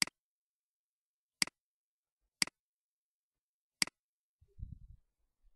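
Four sharp computer mouse clicks, each a quick press-and-release, spaced a second or so apart, followed by a soft low thump about four and a half seconds in.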